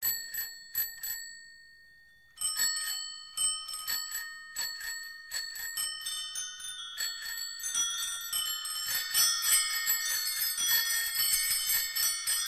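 Bicycle bells ringing: a quick handful of rings that die away, then after a short pause many bells ringing together, growing denser and busier.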